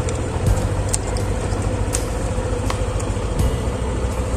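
Yamaha NMAX scooter's single-cylinder engine idling steadily. A few light clicks come through as wires are handled and pushed into the dash.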